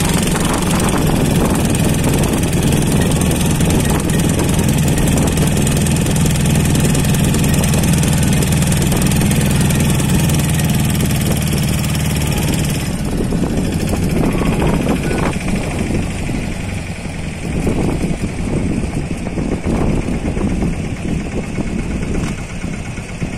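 A wooden tourist motorboat's engine running steadily under way, with the hiss of the water. About halfway through its steady hum drops away as the engine is throttled back near the landing.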